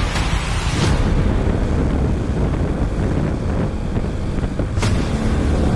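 Wind buffeting the microphone on a moving motorcycle, a steady low rumble with the bike's engine running underneath. Two brief sharp noises cut through, about a second in and again near the end.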